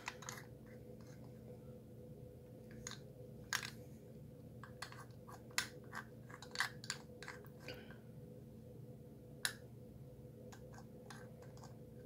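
Faint, irregular clicks of a combination padlock's dial being turned by hand, over a steady low hum.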